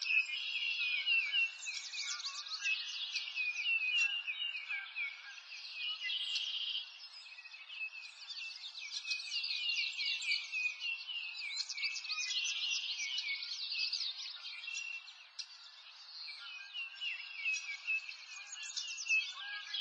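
Dense chorus of small birds chirping and twittering, with many overlapping quick, high calls.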